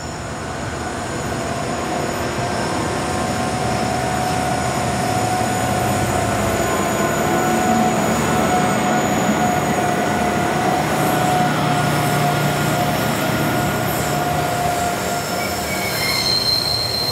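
SCT freight train's diesel locomotives working up a grade and passing close by, growing louder over the first few seconds as they approach, then the wagons rolling past steadily. A high wheel squeal comes in near the end.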